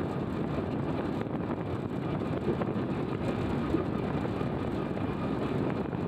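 Steady rush of wind and a motorcycle in motion on a paved road, the wind buffeting a handheld phone's microphone.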